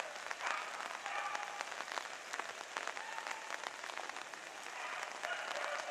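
Young Piccolo Lepraiolo Italiano hare hounds giving tongue: a few short, pitched baying cries at intervals over a steady crackling hiss.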